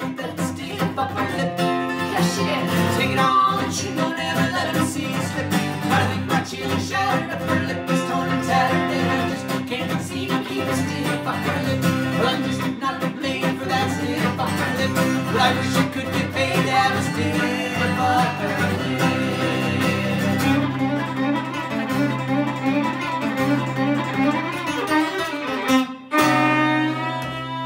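Fiddle and acoustic guitar playing together in an instrumental passage, the fiddle bowed over strummed guitar. Toward the end the playing thins out, breaks off for a moment, and closes on a long held fiddle note over the guitar.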